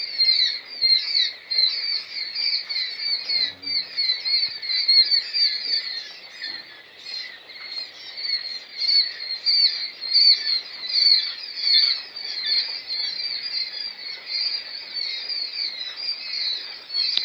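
A brooder full of day-old white quail chicks peeping nonstop, many short high chirps overlapping into a dense chorus.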